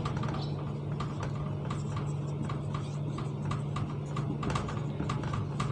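Marker pen writing on a whiteboard: a run of light, irregular ticks and taps as the strokes of the letters are made, over a steady low hum.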